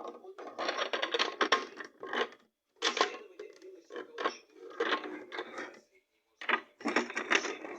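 Toy washing machine running, with irregular bursts of rattling, clinking plastic sound separated by brief pauses.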